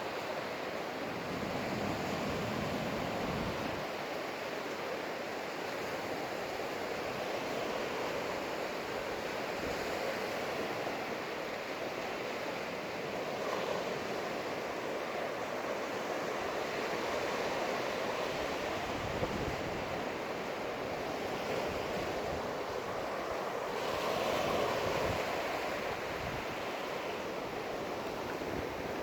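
Ocean surf washing onto a beach: a steady rush that slowly swells and eases, with wind buffeting the microphone now and then.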